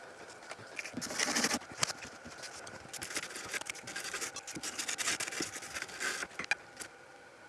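Irregular scratchy scraping and rubbing as a small hand tool scrubs gunk and corrosion off a circuit board.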